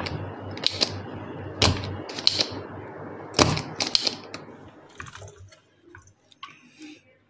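Spring-loaded desoldering pump sucking solder from a bridge rectifier's pins on a circuit board, about five sharp snaps over a steady noise in the first four seconds. Fainter small clicks follow as the loosened rectifier is handled and pulled from the board.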